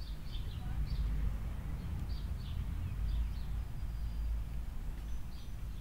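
Small bird chirping in short, high notes, a few at a time in quick clusters, over a steady low rumble.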